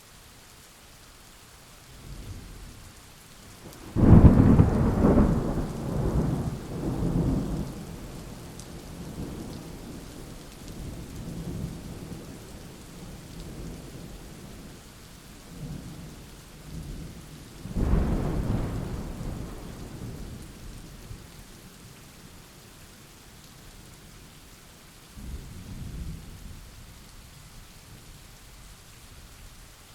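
Thunderstorm: steady rain with a loud thunderclap about four seconds in that rumbles on for several seconds, a second peal a little past the middle, and a fainter rumble near the end.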